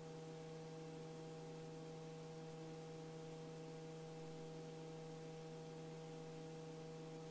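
Faint, steady electrical hum from the helicopter's intercom and radio audio feed between transmissions. It holds a low tone and a few higher steady tones over light hiss.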